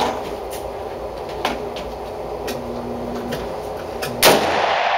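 One loud gunshot about four seconds in, its report ringing on in the enclosed indoor range, over steady range background noise with a few faint sharp cracks before it.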